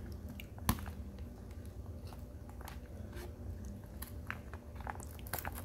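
Fingernails picking and scratching at the card backing of a plastic toy blister pack that won't tear open, with scattered small clicks and crinkles and one sharper click under a second in.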